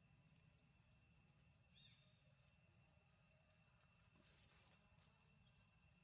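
Near silence with a faint, steady high insect trill, broken by a brief high chirp about two seconds in and another near the end.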